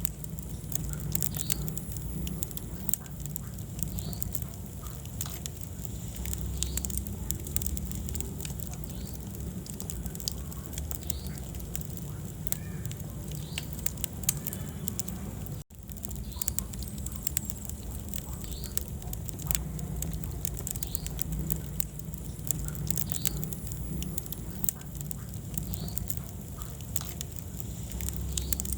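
Wood fire burning in a fireplace: a steady low rumble of flames with frequent sharp crackles and pops of burning wood. The sound cuts out for an instant about halfway through.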